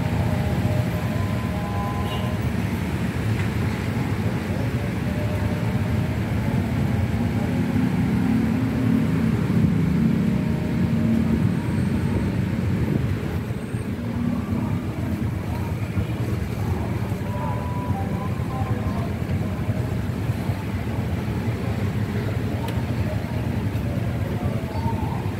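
Motorcycle engines running amid road traffic, a steady low hum that swells about eight to twelve seconds in, with faint voices.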